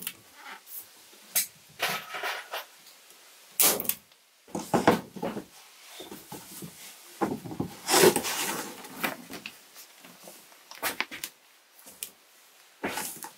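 Staple gun snapping staples through polyethylene vapor barrier sheeting into wood framing: irregular sharp clacks, the loudest right at the start and about eight seconds in, among the crinkle and rustle of the plastic sheet being handled.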